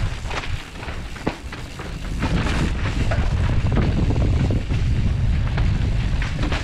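A mountain bike running fast down a dry, rocky dirt trail, heard through a helmet camera's microphone. Wind buffets the mic in a low rumble, and the tyres scrub over the dirt with sharp knocks and rattles over rocks and roots. It grows louder from about two seconds in.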